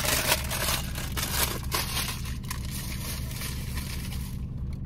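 Rustling and crinkling of a takeout bag and plastic food containers being rummaged through, steady for about four seconds and then stopping, over a steady low hum.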